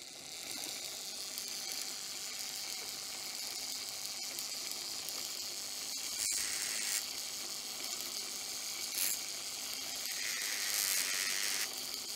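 Steady high hiss, louder for a moment about six seconds in and again near the end, with a few faint clicks as a small screwdriver tip works grease into a toy-train motor's metal gears.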